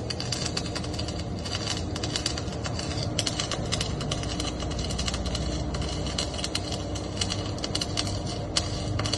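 Electric arc welding: the arc crackles and sputters irregularly and without a break, over a steady low hum.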